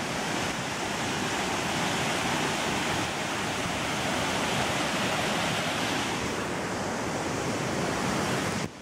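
Large waterfall rushing steadily as it pours into its plunge pool, cutting off abruptly near the end.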